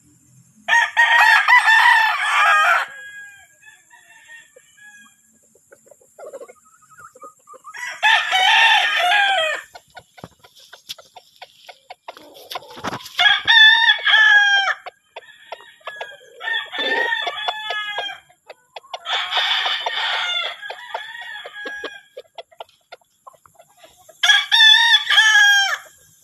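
Roosters crowing, six crows of about two seconds each spaced through the stretch, some loud and close and some fainter.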